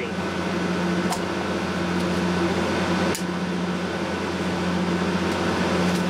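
Steady electrical hum with a hiss over it, from mains-powered high-voltage gear that is switched on but not working; two faint clicks, about a second in and about three seconds in.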